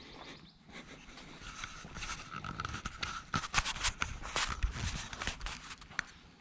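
Footsteps on a hiking trail, a quick irregular run of steps that thickens about two seconds in, with a faint steady high whine for about two seconds in the middle.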